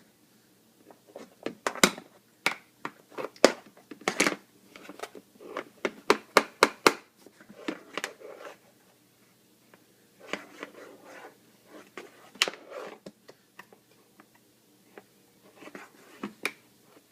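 Irregular clicks and light knocks of small hard objects being handled and tapped together, coming in quick clusters with short pauses, as a baby plays at an open dishwasher.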